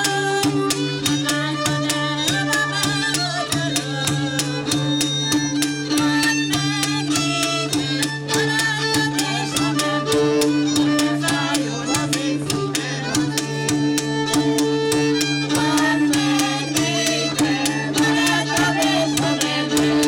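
Live Hungarian folk csárdás music: a fiddle plays the tune over a steady low drone and an even struck beat from a gardon, a cello-shaped folk string instrument.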